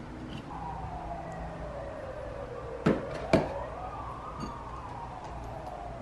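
An emergency vehicle's siren wailing, sliding slowly down in pitch, back up, and down again. Two sharp clicks about three seconds in are the loudest sounds.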